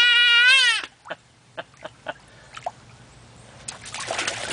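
A toddler's long, high-pitched squeal, held for about a second and then cut off. After a few faint splashes, water splashes and patters near the end as he crouches and paddles in a shallow inflatable wading pool.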